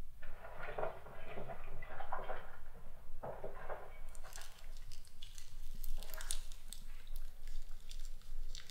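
Someone rummaging through belongings in a room: irregular rustles, small taps and knocks that come and go.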